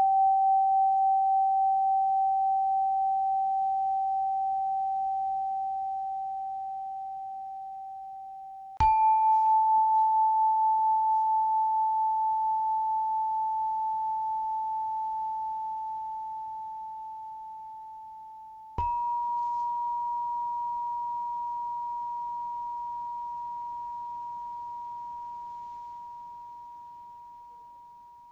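A struck meditation tone, like a bell or singing bowl, rings out clearly and fades slowly. It is struck again about a third of the way in and again about two-thirds of the way in, each time a step higher in pitch. Each strike cues the next step of a guided breathing exercise: inhale, exhale, hold.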